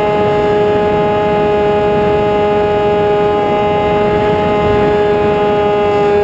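Electric motor and propeller of an RC airplane whining at a steady throttle, with wind rushing over the airframe.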